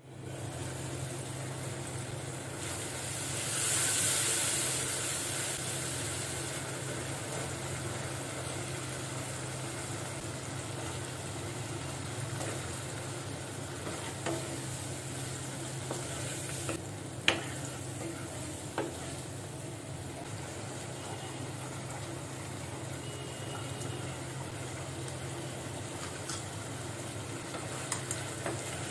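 Vegetables sizzling in hot oil in a non-stick wok while a wooden spatula stirs them, with a few light knocks of the spatula against the pan. The sizzle swells loudest a few seconds in, then settles to a steady frying sound.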